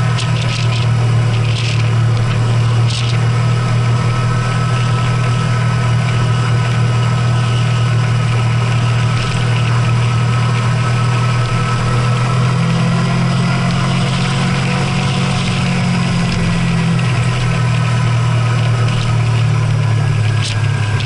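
A vehicle's engine running steadily, a loud low hum that rises slightly in pitch about halfway through, with a few faint ticks.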